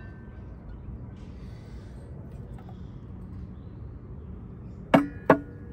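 Old metal charcoal grate from a kamado grill's firebox clanking twice, a third of a second apart, near the end, each knock ringing briefly. Before that there is only a faint steady background.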